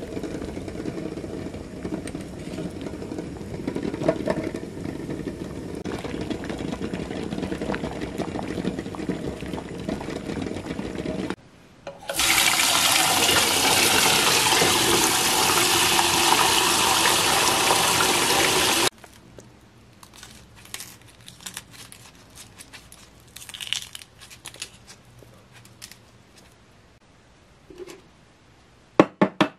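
Water at a rolling boil around eggs in a stainless steel pot. It cuts off, and cold tap water runs hard into the pot in a steel sink for about seven seconds. Then come faint crackles of eggshell being peeled, and near the end a quick series of sharp taps as a boiled egg is knocked against a metal tray to crack its shell.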